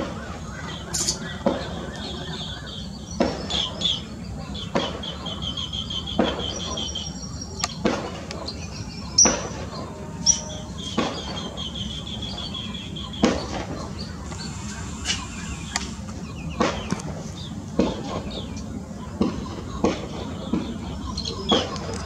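Green bee-eaters calling: high trilled notes in runs of a second or two, repeated several times. Irregular sharp knocks about every second are louder than the calls.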